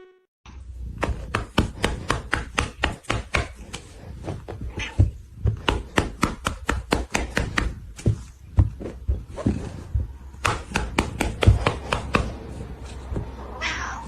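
Irregular light taps and knocks on a hard surface, several a second, with soft low thuds under them, and a brief rising squeak near the end.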